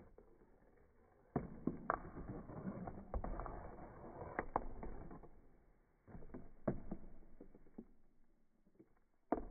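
Glass marbles rolling along a cardboard marble track, a low rolling rumble broken by sharp clicks as they strike the cardboard. One run starts about a second and a half in and lasts about three and a half seconds, a second follows about six seconds in, and a single sharp knock comes near the end.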